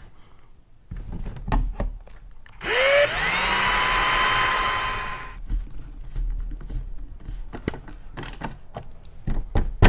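Cordless drill spinning up with a quickly rising whine and running for about three seconds as it bores a hole up through a Scrape Armor skid-plate guard into the underside of a car's front bumper, then winding down. Light clicks and knocks of tool handling before and after.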